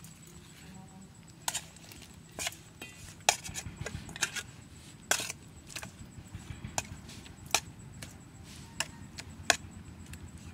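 A metal spoon clinking against a metal bowl as it stirs chili-seasoned pork pieces: about a dozen sharp clinks at irregular intervals.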